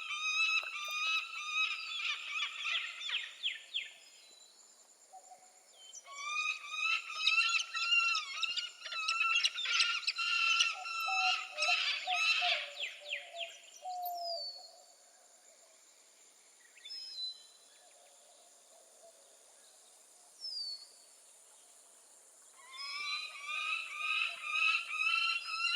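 Peregrine falcon calling in bouts of rapid repeated notes: one bout at the start, a longer one in the middle, and another near the end, with quiet pauses between.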